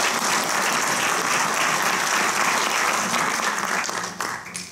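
Audience applauding steadily to greet a speaker just introduced, dying away near the end.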